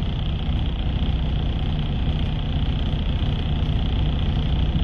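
Steady low rumble of a semi-truck's diesel engine idling, heard from inside the cab.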